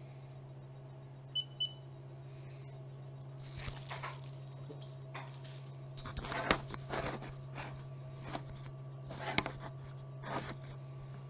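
Knocks and rustling from a webcam being picked up and handled, in irregular bumps with the loudest about six and a half seconds in, over a steady low hum. Two short high beeps sound about a second and a half in.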